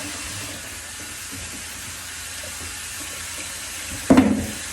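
Kitchen faucet running into the sink while hands are washed under it. A short, louder knock or splash comes about four seconds in.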